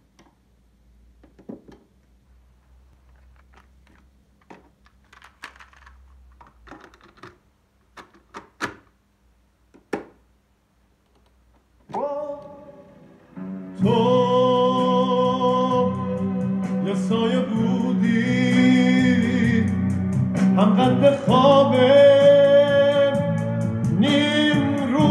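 Technics RS-263AUS cassette deck being operated: a run of sharp clicks and clunks from its power switch, cassette door and keys over the first dozen seconds. Then, as Play is pressed, a tape starts playing a song with a singer, which goes on loudly to the end.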